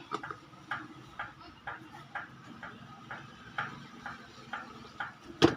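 Light, even clicking about twice a second as a bolt on a blender motor is being undone with a hand tool, with one sharp knock near the end.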